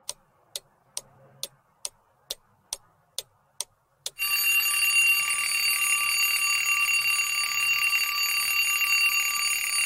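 Countdown timer sound effect: a clock ticks about twice a second, ten ticks, then about four seconds in an alarm clock bell starts ringing continuously, signalling that the answer time is up.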